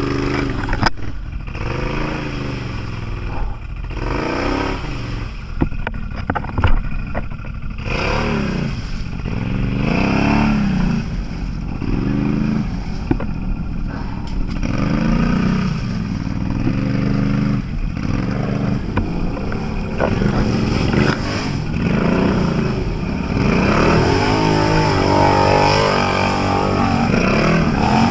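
Off-road vehicle engine revving up and easing off again and again, with knocks and clatter scattered through it. Near the end a second, higher-pitched engine sound comes in over it.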